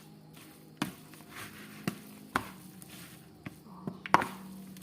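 Spoon stirring coconut sambal into boiled cassava leaves for urap: soft rustling of the mix broken by a handful of sharp knocks of the spoon against the dish, over a faint low hum.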